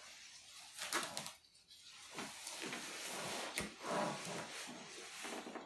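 Faint rustling of a patient-lift sling and its straps being handled and tightened by hand, with a few light clicks and knocks, the sharpest one about three and a half seconds in.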